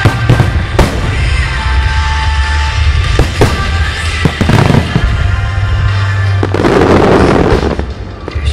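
Marugo fireworks bursting in a rapid series of sharp bangs, with a dense loud rush of noise about six and a half seconds in, over recorded music with a steady bass.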